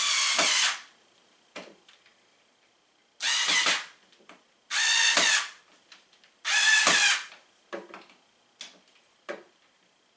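Power drill running in four short bursts of about a second each, its motor whirring up and winding down each time, followed by three light knocks near the end.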